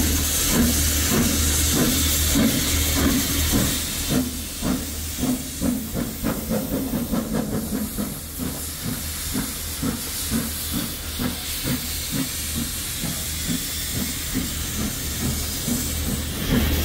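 Steam locomotive No. 85 Merlin, a three-cylinder compound 4-4-0, with steam hissing loudly for about the first four seconds, then quieter, and a steady rhythmic beat of about three strokes a second throughout; the hiss swells again near the end.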